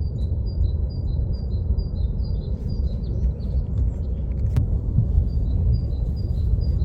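Kilauea's South Vent lava fountain giving a deep, steady rumble. Over it a bird repeats a high two-note chirp, drops out for a couple of seconds in the middle, then starts again. There is a single sharp click about two-thirds of the way through.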